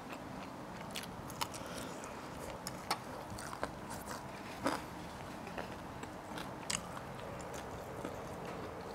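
A person biting and chewing crispy-skinned fried chicken close to a clip-on microphone: scattered sharp crunches and mouth clicks at an irregular pace over a steady low hiss.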